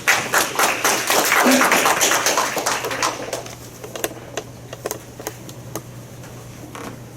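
Applause from a small audience: many hands clapping for about three seconds, then thinning out to a few scattered claps.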